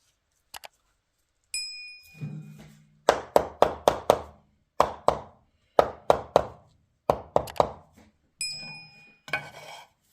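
Sharp ringing knocks in quick groups of two to five, with a bell-like ding before them and another near the end.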